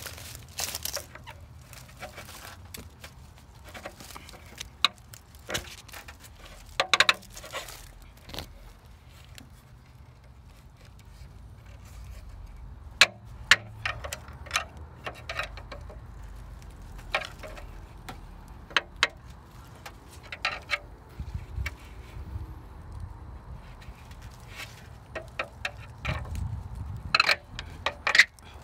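Rustling and crackling of bramble leaves and stems being pushed aside by hand, with scattered sharp clicks throughout and a low rumble of handling near the end.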